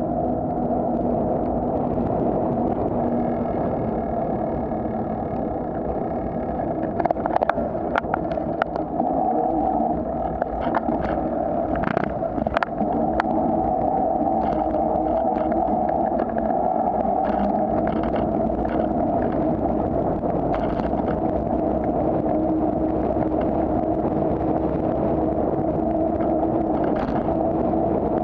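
Steady rumble of wind and rolling noise on a bicycle-mounted camera as the bike rides along town streets. A cluster of sharp knocks and rattles comes about a quarter of the way through, with a few more later, as the bike goes over bumps in the paving.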